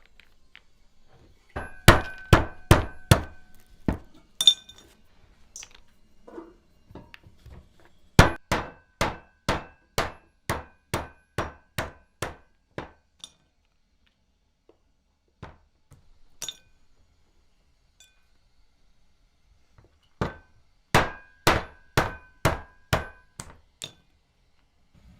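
Repeated strikes of a kitchen blade or mallet on a cutting board, about two a second, each with a short metallic ring. They come in three runs: six strikes near the start, about a dozen in the middle, and eight near the end.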